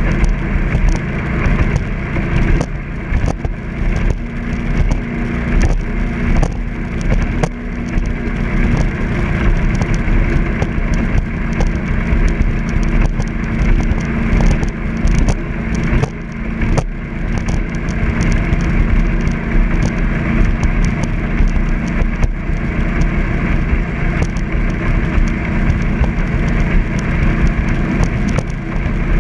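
Jet boat under way at an easy cruise: a steady engine drone with a continuous rushing noise and irregular crackling over it.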